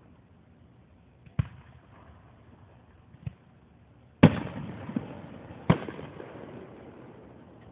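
Aerial firework shells bursting in the sky: five sharp bangs. The two loudest, a little past four seconds and near six seconds in, are each followed by a long fading echo.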